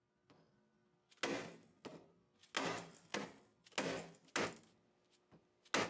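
Hand-sanding strokes, a longer stroke followed by a short one, repeating about every second and a quarter from about a second in.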